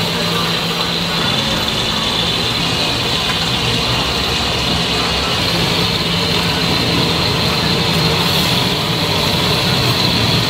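Steady engine hum, a low drone under a constant hiss.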